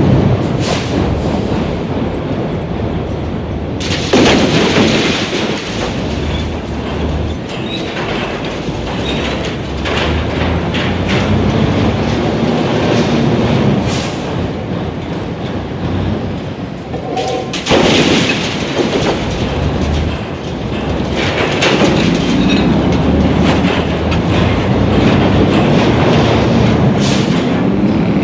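Building demolition: a heavy continuous rumble of crumbling masonry and rattling debris, with sudden louder crashes about four seconds in and again near eighteen seconds, and many smaller impacts throughout.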